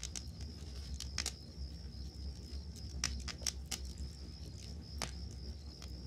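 Wood campfire crackling, with scattered sharp pops that bunch together about three seconds in, over the steady high-pitched chirring of crickets.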